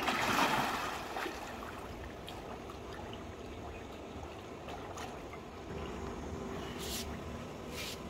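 Pool water splashing as a man pushes off and swims breaststroke: a burst of splashing at the start, then steady lighter splashing and lapping, with two short splashes near the end.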